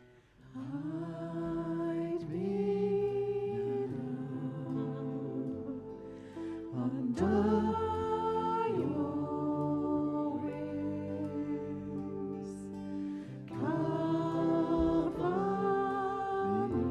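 Worship band playing a slow, gentle song: women's voices singing long, held phrases over strummed acoustic guitar, starting about half a second in, with a bass line joining about halfway through.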